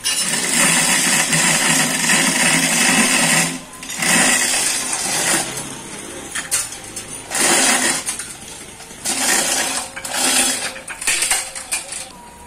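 Manual chain hoist's steel hand chain rattling and clinking through the block in a run of pulls, in about five loud bursts with short pauses, as the hoist lowers the hammer mill's heavy hinged upper housing.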